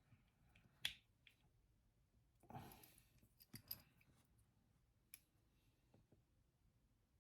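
Faint, sparse clicks and a brief scraping rustle of small model-kit parts being handled while tiny screws are driven in. The sharpest click comes about a second in, the scrape about two and a half seconds in.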